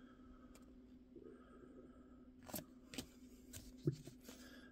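Paper baseball cards being flipped through by hand: a few soft flicks and slides of card stock in the second half, the sharpest about four seconds in, over a faint steady hum.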